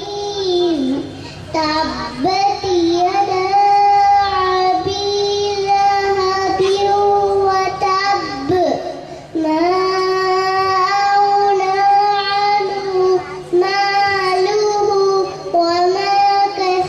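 A small girl reciting Quranic verses in a melodic chant into a microphone, in long held high notes with short breaks between verses.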